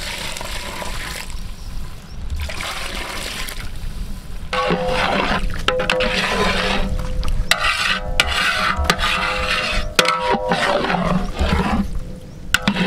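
Water poured from a pan into a large aluminium cooking pot, splashing and pouring for the first few seconds. From about four and a half seconds in, background music with sustained tones and regular percussive beats takes over.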